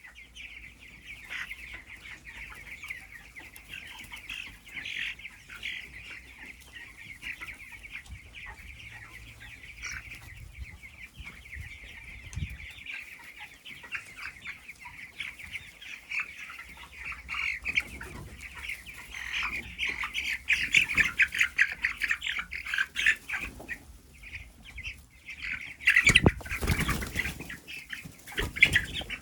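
A flock of broiler chickens calling continuously in a dense, high-pitched chatter, with wings flapping; the calling grows busier in the second half, and a loud burst of noise and flapping comes about 26 seconds in.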